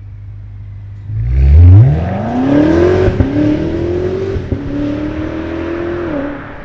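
BMW G90 M5's twin-turbo S68 V8 through a DCE aftermarket exhaust, idling, then accelerating hard about a second in. The engine note climbs, breaks briefly twice as it upshifts with a sharp crack at each shift, and drops away as it lifts off near the end.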